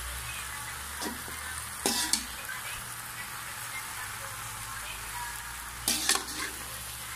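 Water spinach stir-frying in a wok: a steady sizzle, with a metal spatula scraping and knocking against the pan about a second in, around two seconds, and again near six seconds, as the greens are tossed to wilt.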